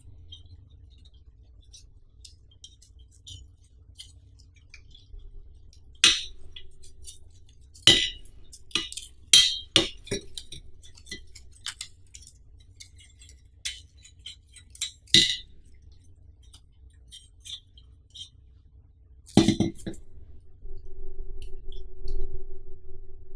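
Metal parts of a black folding tripod banner stand clinking and clacking as they are handled and adjusted, in scattered clicks and knocks with a few louder clusters. A steady humming tone comes in near the end.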